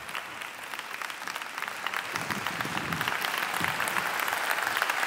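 Large audience applauding, the clapping swelling louder about two seconds in.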